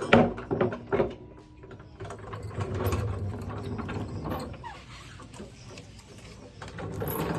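Hand tools working on the exhaust hardware: sharp clicks in the first second, then irregular ratchet-like clicking and metal rattling.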